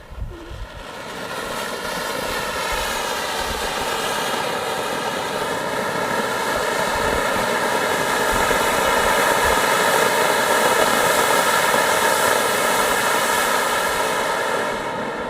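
An anar (fountain firework, or flower pot) spraying sparks with a loud, steady rushing hiss that has a pitched tone running through it. It builds up over the first couple of seconds, burns evenly for a long time, and dies down near the end.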